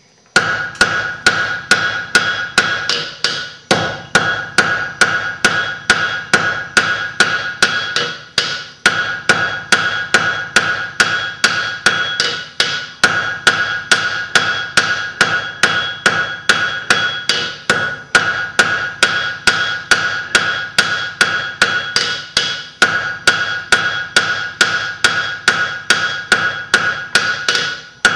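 Hand hammer striking red-hot iron on the bick of an anvil, about three blows a second with a steady ringing from the anvil and short breaks every few seconds. The smith is drawing down the square point of a needle bodkin arrowhead.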